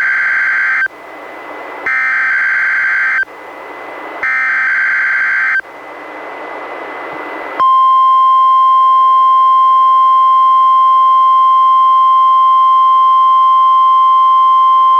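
NOAA Weather Radio Specific Area Message Encoding (SAME) header: three short warbling digital data bursts about a second and a half each, separated by hiss. About seven and a half seconds in, the steady 1050 Hz warning alarm tone starts and holds as one loud, unbroken tone; here it is sounded as a test of the receivers' alarm.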